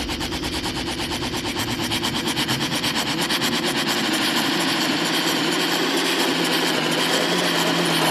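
Electronic soundtrack music: a steady, rapidly pulsing buzzing drone that grows slightly louder.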